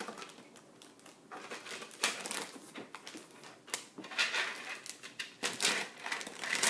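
Plastic bags of Lego pieces being taken out of the box and handled: crinkling plastic and small clicking of bricks, sparse at first and busier from about four seconds in.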